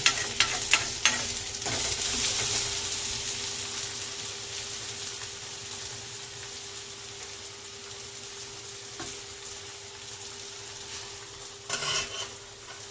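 Onions and tomatoes frying in oil in a pan, a steady sizzle with a few clicks of a spoon against the pan at the start. The sizzle fades slowly as the covered pan cooks on a low flame, and there is a brief clatter near the end.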